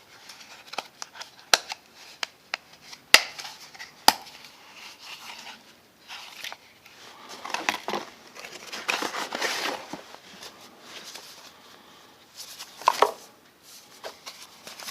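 Hands handling multi-tool packaging: a few sharp clicks in the first four seconds, then bouts of packaging rustling and crinkling.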